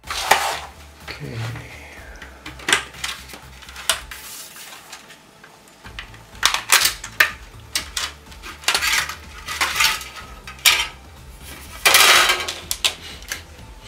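The thin sheet-metal EMI shield of an Amiga 1000 keyboard being worked loose and handled: irregular metallic clinks and clatters, with a longer scrape about twelve seconds in.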